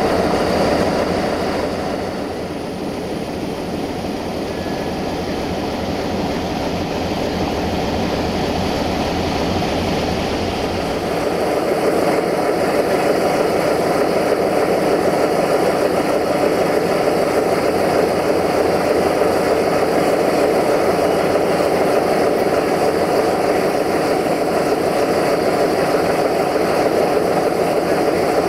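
Diesel engine of a CFR Marfa 060-DA locomotive, the 'Fluieroasa' (whistle loco) with its Sulzer engine, running steadily as it approaches. About eleven seconds in the low rumble drops away and the mid-range gets louder, then holds steady.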